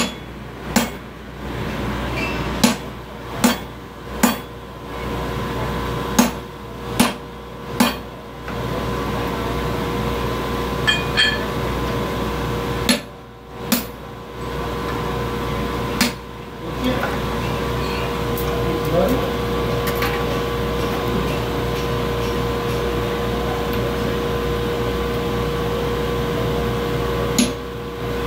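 Hammer blows on steel at an anvil, a run of about eight strikes roughly a second apart, then a few scattered blows, a long gap with no strikes, and more blows near the end. A steady hum runs underneath.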